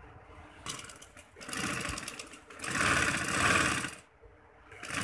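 Domestic sewing machine stitching net fabric in short runs. It starts about a second and a half in, stops briefly about four seconds in, and starts again near the end.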